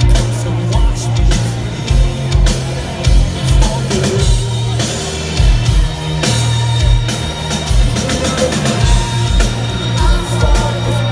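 Live rock band playing: a steady kick-drum beat over bass and electric guitar, with cymbals. The kick drum drops out for about a second midway, then comes back.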